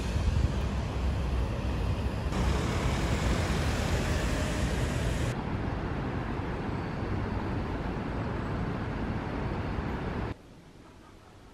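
City street ambience: steady traffic noise from passing cars, heavy in the low end, which drops away suddenly to a faint background hum about ten seconds in.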